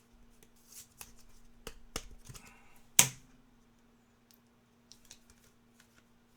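Trading cards being handled and flipped through by hand: light, scattered clicks and rustles of card stock, with one sharp snap about three seconds in.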